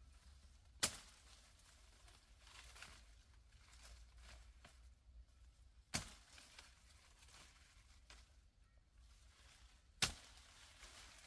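Three sharp single strikes, each with a short ringing decay, spaced about four to five seconds apart.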